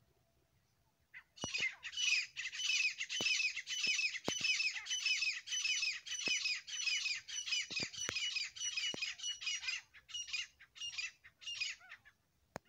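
A pair of grey francolins (teetar) calling: a fast run of harsh, repeated notes starts about a second in, then slows and thins out to a few separate notes near the end.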